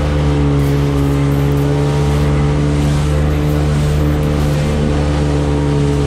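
Jet ski engine running at a steady throttle, its pitch holding constant, with water rushing and spraying off the hull as it crosses light chop.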